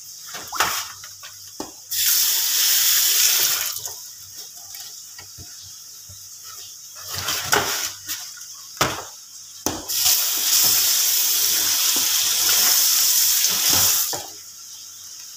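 Kitchen tap running into a stainless steel sink twice: briefly about two seconds in, then for about four seconds near the end. Between the two runs come scattered knocks and splashes as raw shrimp are handled in a plastic tray.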